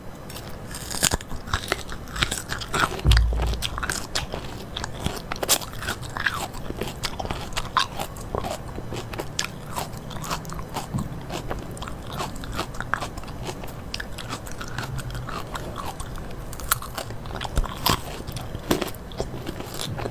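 Close-miked eating: a person biting and chewing crunchy food in a dense run of irregular crunches and crackles. A low thump about three seconds in.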